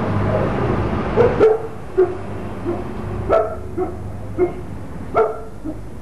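A dog barking several times in short, separate barks at uneven intervals. A steady low hum underneath stops about a second and a half in.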